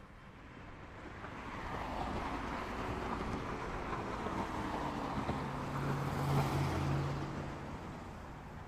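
A vehicle passing by: a rumbling noise that builds, peaks with a low engine hum about six seconds in, then fades away.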